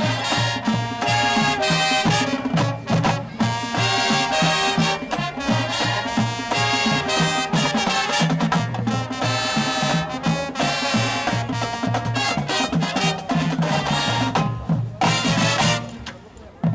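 A high school marching band's brass and drums playing a rhythmic, Latin-flavoured piece over a steady drum beat, cutting off sharply on a final hit near the end.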